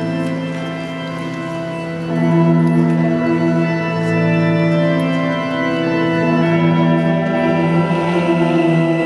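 Organ music of long held chords, growing louder about two seconds in.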